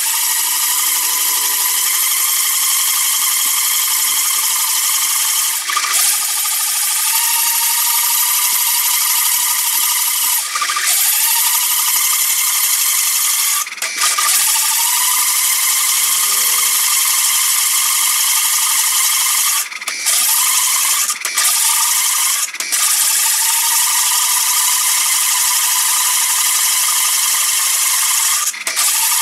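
Bench drill press boring a hole through a flat metal bar: a steady, loud, high-pitched grinding of the bit cutting metal, broken by several brief breaks.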